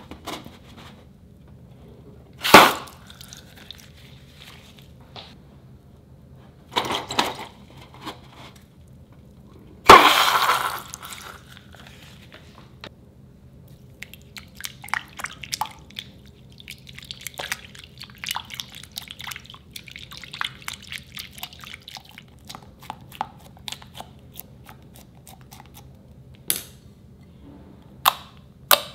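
A water-filled balloon cut open over a glass bowl: three sharp snaps in the first ten seconds or so, the last followed by water splashing into the bowl. Then a spatula stirring wet white slime with a fine, steady crackle, and near the end hands squeezing the slime, giving a few sharp pops.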